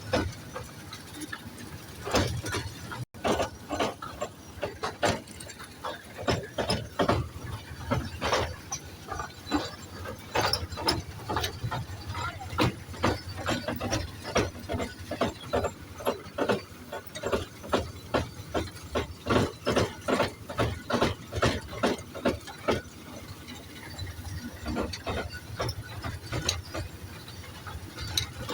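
Toy train running on its track: a steady run of sharp clicks and clacks from the wheels, several a second, over a low rumble.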